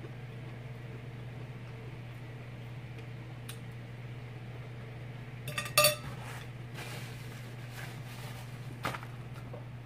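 Eating at the table: a fork clinking and scraping on a plate, with a loud cluster of clinks a little past halfway, and chewing, over a steady low hum.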